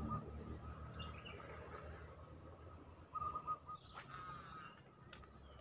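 A bird calling in short rapid trills, once at the start and again about three seconds in, over faint outdoor background noise. A sharp click about four seconds in.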